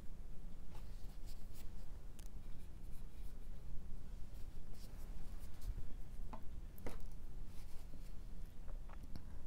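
Bristle brush scratching and dabbing oil paint onto a canvas-textured panel in short strokes, a few stronger ones near the middle, over a steady low hum.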